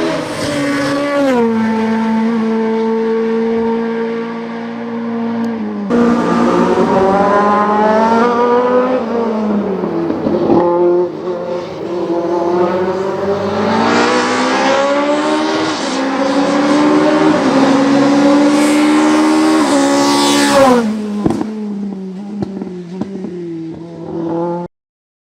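Opel Kadett E hill-climb race car's engine at full throttle. The pitch climbs steadily and then drops sharply at each gear change, several times over. Near the end the engine note thins and fades, then cuts off suddenly.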